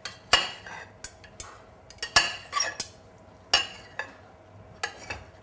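Steel knife and fork clinking on a ceramic plate while slicing cooked octopus into small pieces. About half a dozen sharp clicks come at irregular intervals as the blade cuts through and strikes the plate.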